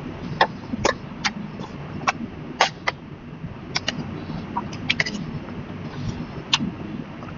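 Close-up chewing of grilled pork belly and kimchi: irregular crisp, wet mouth clicks and smacks, about two a second, over a low steady hum.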